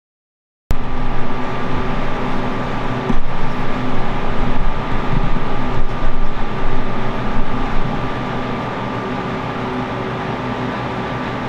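A loud, steady machine-like drone with a constant hum, cutting in suddenly just under a second in and evening out after about eight seconds.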